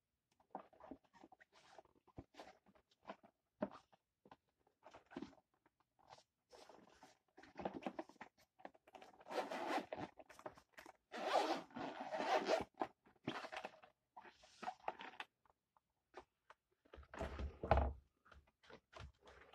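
The zipper of a Zhiyun Smooth Q gimbal's hard-shell carrying case being unzipped in a run of pulls around the case, with handling rustle of the case between them and a soft thump near the end.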